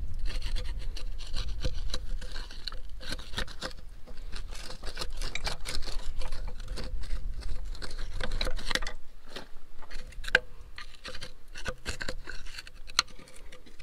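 A hand tool scraping and picking at the remains of a twisted-off plug in the Farmall H engine block: irregular scratching with sharp clicks, busiest for the first nine seconds and then more scattered. The plug is one the owner believes was set in with JB Weld rather than pipe thread.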